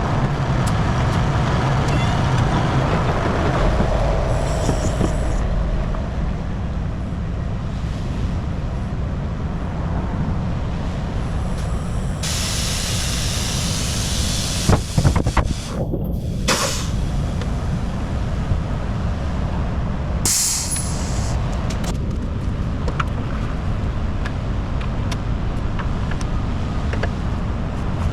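Semi truck idling with a steady low rumble, its air brake system letting out two bursts of hissing air, a longer one a little under halfway in and a short one later, with a few metal clanks between them.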